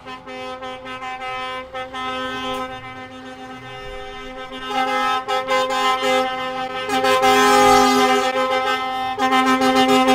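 Air horns on Scania trucks sounding long, steady blasts. A second horn chord joins about halfway through, and the sound grows louder toward the end.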